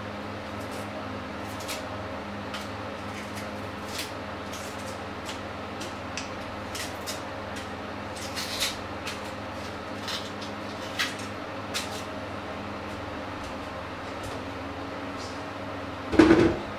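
Hard-boiled eggs being peeled by hand: scattered small clicks and crackles of shell over a steady low hum. Near the end comes a single louder knock.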